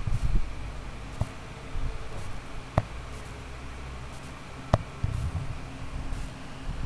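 Low, uneven rumble of a cat's head and fur rubbing against a camera and its microphone, with a few sharp clicks where it bumps the camera.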